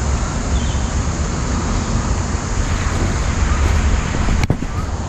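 Steady outdoor background noise, a rumble with a hiss over it, like wind buffeting the microphone, with one sharp click about four and a half seconds in, as a hand handles the camera.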